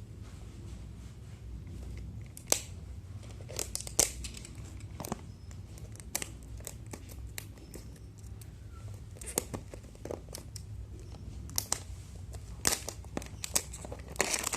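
Phone packaging being handled and opened by hand: plastic crinkling and tearing, with sharp clicks and snaps at irregular intervals over a low steady hum.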